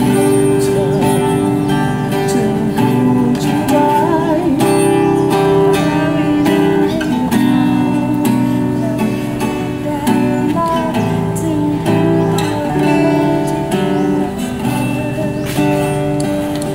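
Acoustic guitar strummed in slow, held chords, with voices singing a melody along with it.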